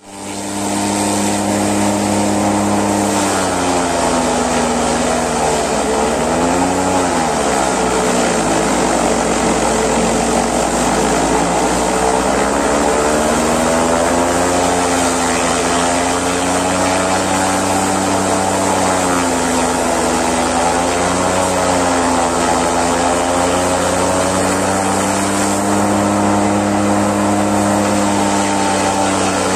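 Tractor engine driving a forage chopper at steady working speed, its pitch sagging and recovering again and again as armfuls of napier grass are fed in and chopped, with a hiss from the chopper over it.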